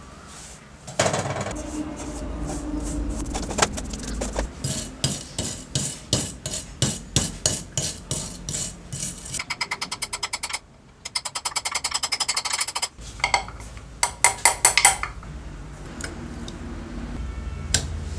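Small metal hammer tapping on the metal parts inside a Hitachi circular saw's motor housing to drive them out. The taps come in runs, one stretch fast and even at several taps a second, with a few louder blows after it. A rag rubs on the bench in the first few seconds.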